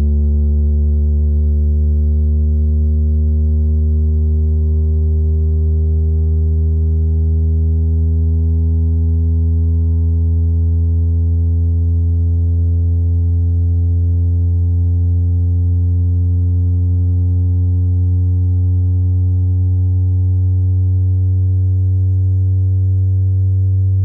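Yamaha YST-SW030 8-inch subwoofer playing a deep, steady test tone with a stack of overtones, its pitch creeping slowly upward.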